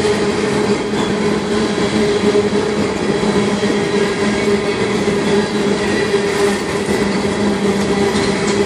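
Covered grain hopper cars of a freight train rolling past close by: a steady noise of steel wheels on rail with a constant low hum.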